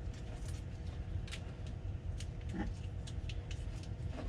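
Steady low hum with light clicks and taps from hands handling loose electrical wiring and tape, and a brief squeak about two and a half seconds in.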